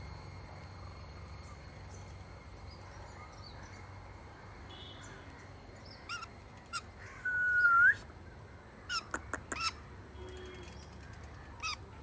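Bird calls: a few short chirps, then a longer whistled call that rises at its end about seven seconds in, the loudest sound here. A quick run of short calls follows, and one more comes near the end, over a steady faint high-pitched whine.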